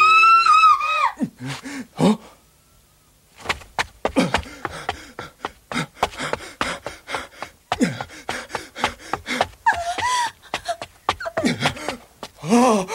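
Animated voice acting: a shrill cry of about a second opens, then agitated shouting voices with gasps, broken by a brief lull about two seconds in, and further cries about ten seconds in and near the end.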